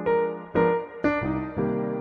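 Background piano music, a new note or chord struck about every half second, each one ringing and fading.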